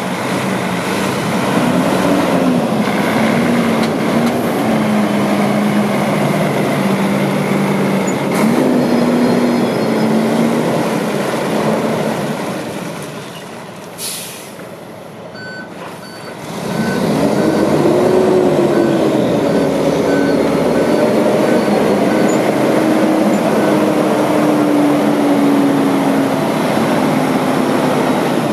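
Freightliner M2-112 box truck's diesel engine pulling away and shifting, its pitch rising and falling. About halfway through an air brake hisses briefly, then the reverse alarm beeps steadily for several seconds while the engine works the truck back.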